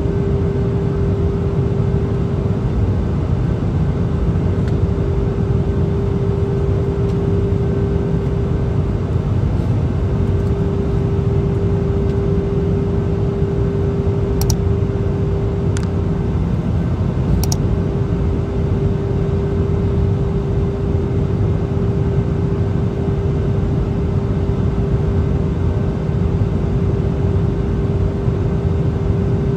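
Jet airliner cabin noise from a window seat beside the wing engine: a steady engine drone with one constant hum-like tone over a deep rumble. A few sharp clicks sound in the middle.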